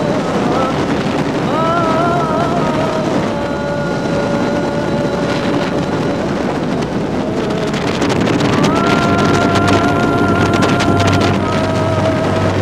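Bass boat's outboard motor running at speed over choppy water, its whine climbing in pitch twice and then holding steady, with wind buffeting the microphone.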